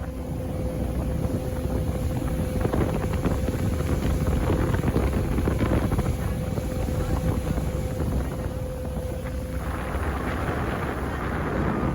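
Wind buffeting the microphone with a low, steady rumble, and a faint steady hum underneath that stops about three-quarters of the way through; near the end the wind noise grows brighter and louder.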